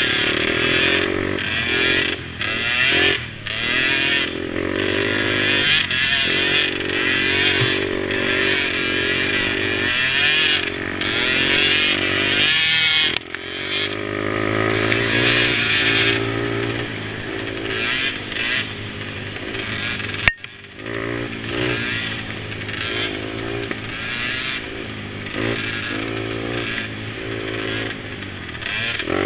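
Mini quads' small engines racing, revving up and down, with more than one engine heard at once at times. About twenty seconds in there is a sharp click, and the engine sound briefly drops away.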